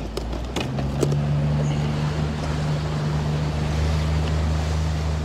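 Small fishing boat's engine running steadily under way, with water rushing past the hull and wind on the microphone. A few sharp clicks come in the first second.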